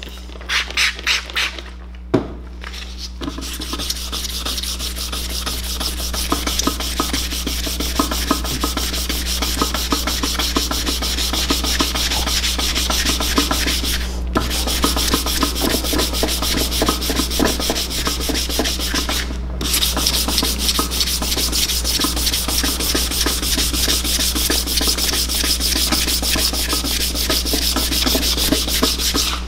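A hand spray bottle squirts water several times in quick succession, followed by a single sharp knock. Then 320-grit sandpaper is rubbed back and forth by hand over the wet aluminium motorcycle engine cover in steady, rhythmic strokes, stopping briefly twice.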